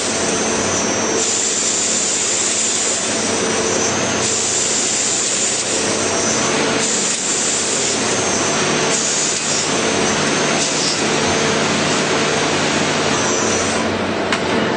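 CNC machine running: a loud, steady mechanical noise with a high whine that comes and goes every second or two.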